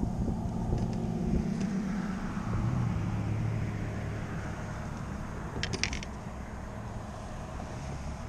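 A car passing on a nearby road: a steady engine and tyre hum that swells about three seconds in, then fades away. A short cluster of light clicks comes near the six-second mark.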